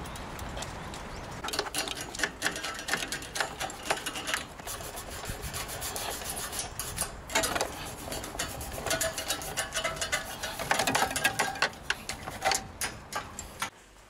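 Brush scrubbing and scraping along a refrigerator's wire condenser coils in quick scratchy strokes, cleaning off years of accumulated dirt. The scrubbing starts about a second and a half in and goes on in irregular bursts.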